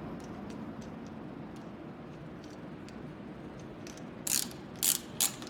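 Steel tubing being cut to length: faint scattered ticks over a steady background noise, then a few sharp clicks close together near the end.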